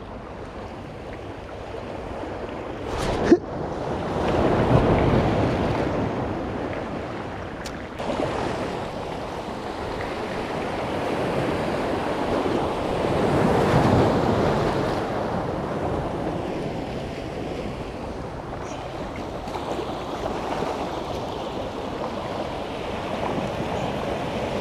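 Small sea waves washing over shoreline rocks, swelling and ebbing in slow surges, with wind on the microphone. A sharp click about three seconds in.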